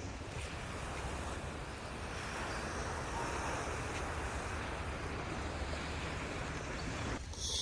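Baltic Sea surf washing steadily, with wind rumbling on the microphone. The wash cuts off suddenly near the end, followed by a brief high-pitched sound.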